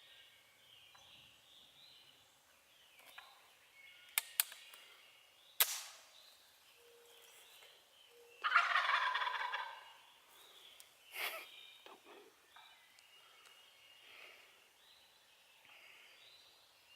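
Wild turkey gobbler gobbling: one loud, rattling gobble lasting about a second and a half, a little past the middle. A few sharp clicks come a few seconds before it.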